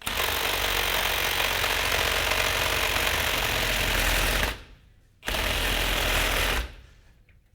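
Handheld electric power saw with a reciprocating blade cutting straight down through a wooden windowsill piece. It runs for about four and a half seconds, stops briefly, then runs again for about a second and a half before stopping.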